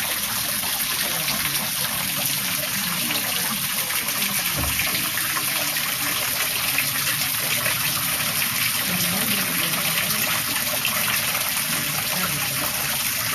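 Garden water fountain trickling and splashing steadily.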